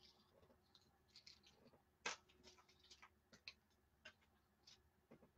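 Near silence broken by faint, scattered small clicks and ticks, the loudest about two seconds in.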